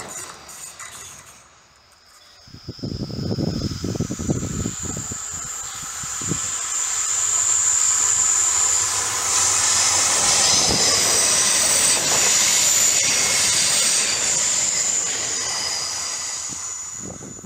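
Stadler FLIRT electric multiple unit passing close by on a curve: a rising rush of running noise with a steady high-pitched squeal, loudest in the middle and fading near the end.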